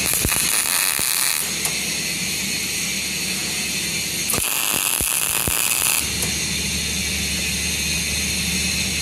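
Two tack welds struck on a preheated, cracked steel differential locker: an electric welding arc crackles and hisses for about a second and a half at the start, then again for about a second and a half midway. A steady hum runs underneath.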